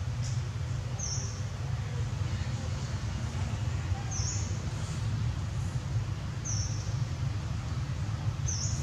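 Outdoor ambience: a short, high chirp repeats four times, about every two to three seconds, over a steady low rumble.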